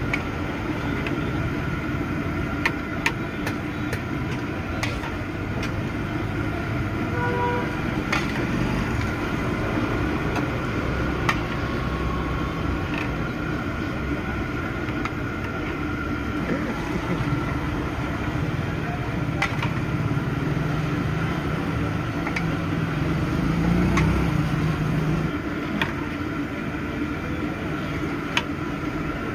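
Spinach and moong dal pakodas deep-frying in a large iron kadai of hot oil: a steady sizzle over the low roar of the gas burner beneath. Now and then the perforated metal ladle clicks against the pan.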